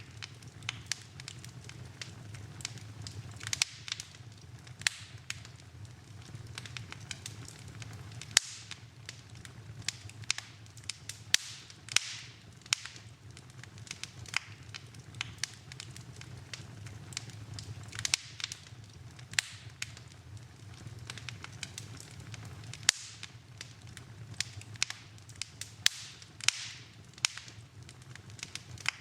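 Wood fire burning in a fireplace: irregular sharp crackles and pops, some much louder than the rest, over a low steady rumble.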